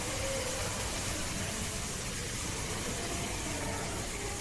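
Steady background hum and hiss: an even noise with a low hum under it, with no distinct event.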